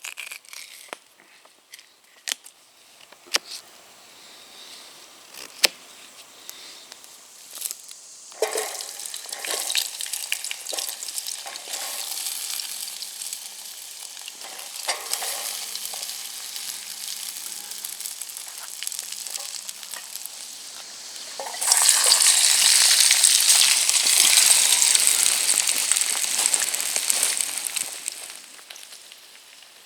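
Food sizzling in a hot pan, with scattered crackles for the first several seconds. The sizzle begins about eight seconds in and grows much louder about two-thirds of the way through, then eases off.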